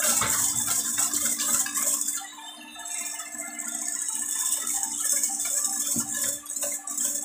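Electric hand mixer beating egg whites into a white foam in a stainless steel bowl: a steady motor hum with the beaters rattling and scraping against the metal bowl. A little after two seconds in, the rattle drops back briefly, then picks up again.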